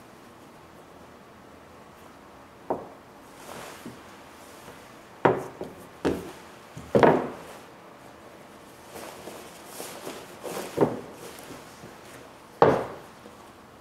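About six dull knocks and thuds on a wooden tabletop, with rubbing and rustling in between, as latex sheeting with a pipe inside is lifted, shifted and set down. The loudest knocks come a little after 5 seconds, around 7 seconds and near the end.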